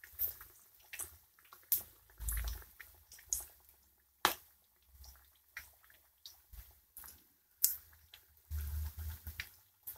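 Battered green chillies deep-frying in hot oil, the oil crackling and popping irregularly, with a couple of sharper clicks partway through.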